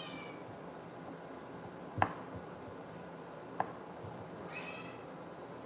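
A cat mewing briefly twice, high-pitched, once at the start and again about four and a half seconds in. Sharp knocks come about two seconds in and about three and a half seconds in; the first is the louder.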